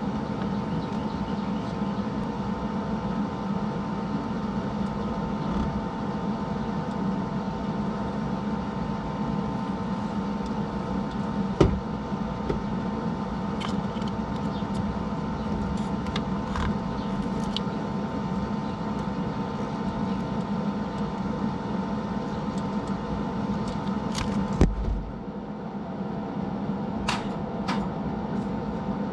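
A steady mechanical hum with a constant pitch, with a few sharp clicks and knocks over it, a loud knock about halfway through and another near the end, after which the hum drops slightly.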